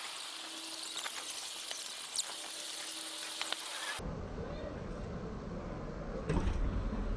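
Steady airy hiss with a few light clicks, which changes abruptly about four seconds in to a low rumble with wind buffeting the microphone.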